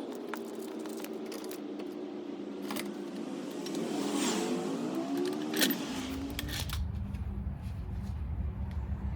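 Car engine running, its pitch gliding up and down about four seconds in. A low rumble sets in about six seconds in.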